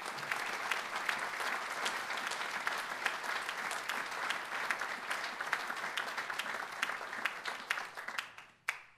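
Audience applauding: dense, even clapping from many hands, dying away near the end with one last sharp clap.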